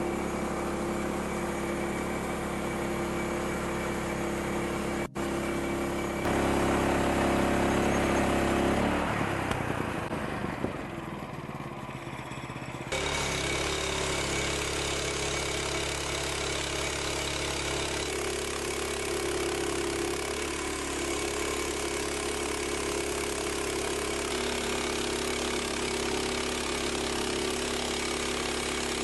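A machine's engine running steadily. The sound changes abruptly about five, six and thirteen seconds in, with a dip in between.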